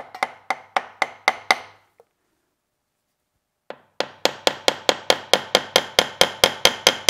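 Rapid tapping on the metal gearbox cover of a DoAll drill press to work that section loose from the gear case. About seven sharp, slightly ringing knocks come first, then a pause of about two seconds, then a longer, faster run of knocks.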